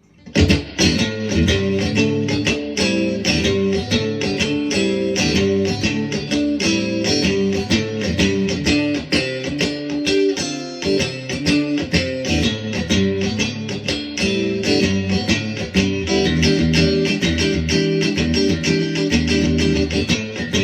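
PRS SE Swamp Ash Special electric guitar played on the neck and middle pickups together in single-coil mode: a continuous, busy stream of picked notes and chords that starts abruptly right at the beginning.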